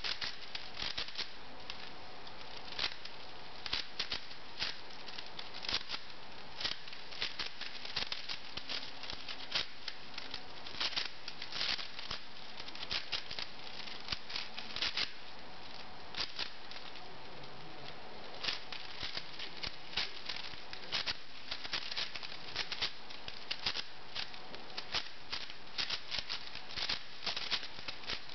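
V-Cube 6 (6x6 puzzle cube) clicking and clacking as its plastic layers are turned rapidly by hand, in irregular runs of quick clicks with brief pauses between them.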